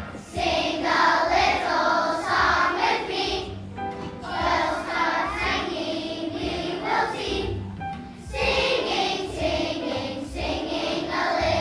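Children's choir of second graders singing together over an instrumental accompaniment, in three phrases with short breaks between them.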